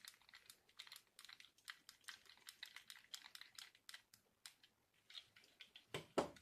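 Faint, irregular light clicks and taps of hard plastic RC truck parts being handled. A louder knock comes about six seconds in.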